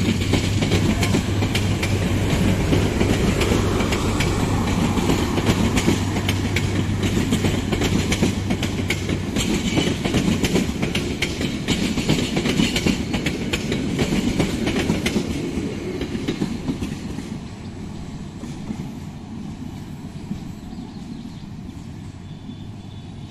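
Chinese-built passenger coaches of an intercity train rolling past, the wheels clattering fast over the rail joints, fading after about sixteen seconds as the last coach passes and draws away. A steady low hum stops about nine seconds in.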